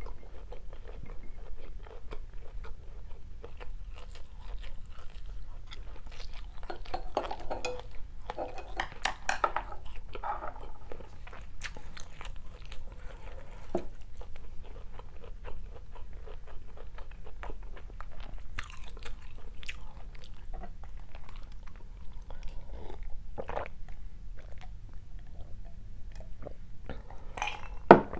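Close-miked chewing and biting of stir-fried rice vermicelli with fried tofu: irregular wet mouth sounds and soft crunches, busiest for a few seconds early on and sparser later. One sharp tap near the end.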